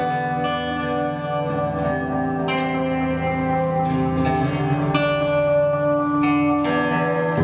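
Live band playing slow instrumental music led by guitar, with long ringing notes and a new chord about every second.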